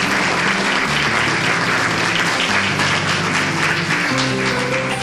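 Audience applauding over background music. The clapping thins out about four seconds in while the music carries on.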